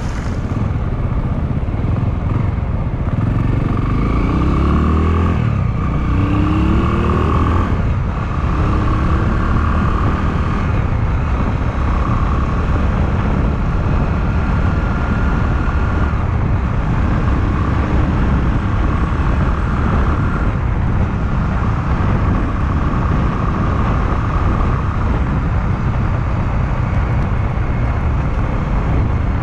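Honda Clubman motorcycle engine rising in pitch twice in the first several seconds as it pulls away and shifts up, then running steadily at cruising speed. Heavy wind rumble on the microphone from riding.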